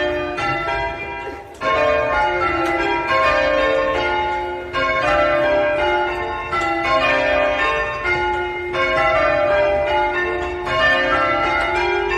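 Church bells being change rung: a ring of tower bells struck one after another in quick succession, each left ringing into the next. There is a brief lull about a second and a half in.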